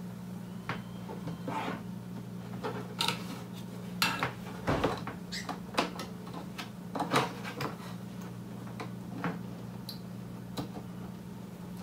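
Hands fumbling with a cable at the back of a monitor, plugging a DisplayPort connector into its port: irregular plastic clicks and knocks, over a steady low hum.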